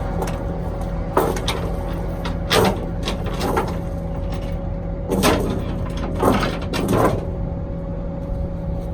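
Steel tie-down chain clanking and rattling against the bus's wheels and the trailer in about seven short bursts, over a steady low engine idle.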